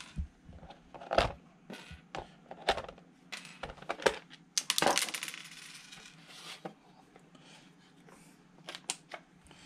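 Plastic RC truck body being taken off the chassis by hand: scattered clicks and knocks of plastic, with a longer scraping rustle about five seconds in as the body comes away.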